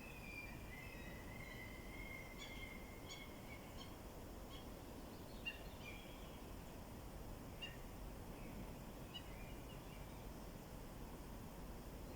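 Faint birdsong: a drawn-out whistled note over the first few seconds, then scattered short chirps, over a steady low background rumble.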